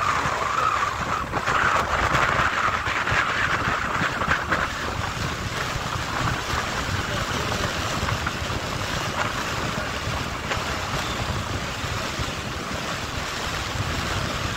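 Steady wind rush over the microphone and road noise of a moving motorcycle at speed, a little louder and hissier in the first few seconds.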